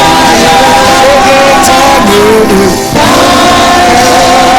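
Gospel worship music with singing, long held notes, dipping briefly about three seconds in.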